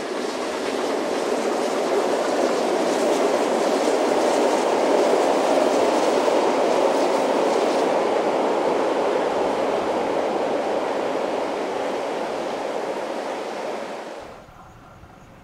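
Vintage passenger carriages rolling across a steel lattice truss bridge: a steady rumble of wheels on the rails that swells, eases off, and cuts off abruptly near the end.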